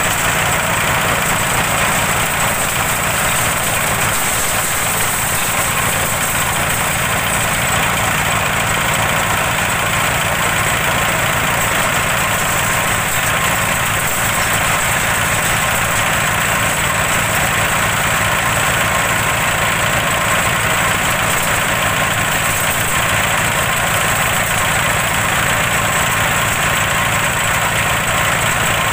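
Twelve-blade organic-waste chopper running steadily under its small stationary engine, shredding organic waste into fine compost material.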